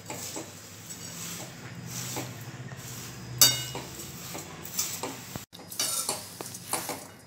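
Metal spatula scraping and clinking against a metal kadhai while thin poha flakes are tossed and mixed into the cooled tempering, with one sharp clink about three and a half seconds in.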